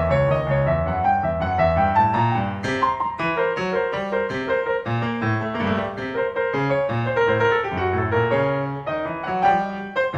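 Solo grand piano playing a contemporary piece, many quick notes following one another in both low and middle registers.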